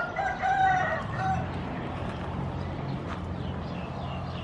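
A rooster crows once, about a second and a half long, over a steady low hum.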